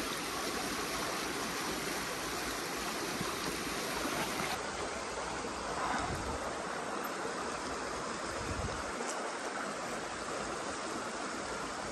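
Shallow creek water running steadily around horses standing in the stream.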